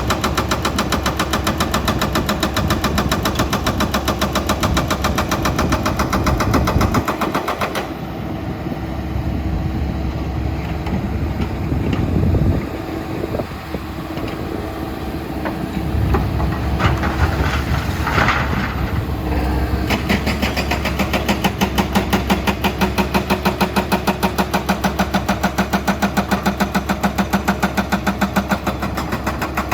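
Diesel excavator engines running, with a fast, even pulsing clatter; the pulsing eases for a stretch in the middle and comes back strongly.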